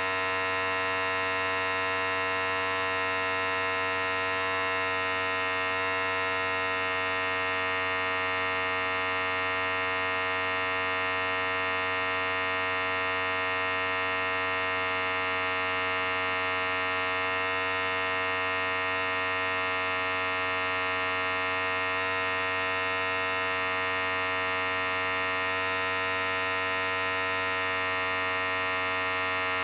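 Electric hair clippers running with a steady, unbroken buzz.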